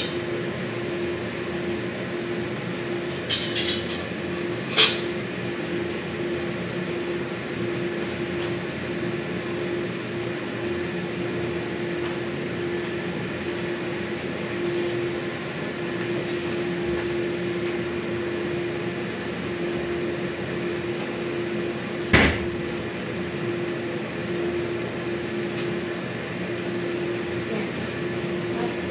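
Steady hiss of food frying in oil in a pan, over a constant steady hum. Sharp clinks of a utensil against the pan come a few seconds in and once more, loudest, about 22 seconds in.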